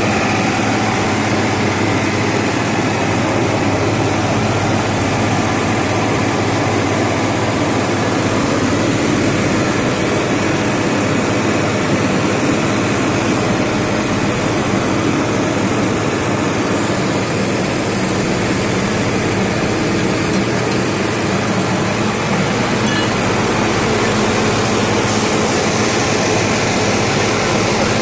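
A large engine running steadily, with a loud, even rushing hiss over a low hum.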